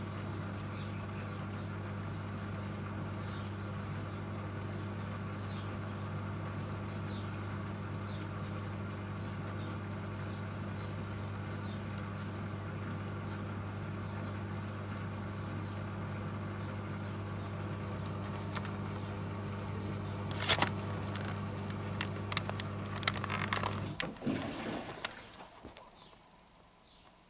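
Miele W1 washing machine's drain pump humming steadily, then gurgling with irregular clicks as it starts drawing air once the tub is nearly empty, and cutting off about three seconds before the end.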